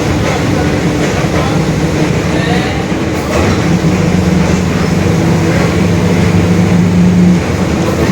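Mercedes-Benz OF-1721 Bluetec 5 city bus heard on board while under way: a steady drone from its four-cylinder diesel and drivetrain, with the growl of the differential that this bus is known for. The drone steps up louder and higher about three and a half seconds in, eases briefly near the end, then comes back.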